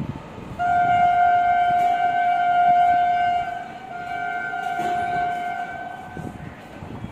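Horn of an approaching WAG-9 electric locomotive: one long, loud, steady single-pitch blast that starts about half a second in, then after a brief break a second, fainter blast of about two and a half seconds.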